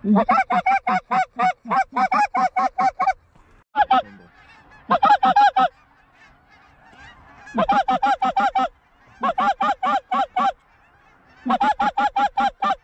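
A hand-blown goose call sounding fast runs of honks and clucks, about five or six notes a second, in several bursts with short pauses between, calling to geese circling overhead.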